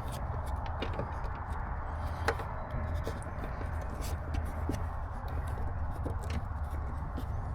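Hands pressing a rubber wiring grommet into place, giving scattered small clicks and pops as it seats, over a steady low hum.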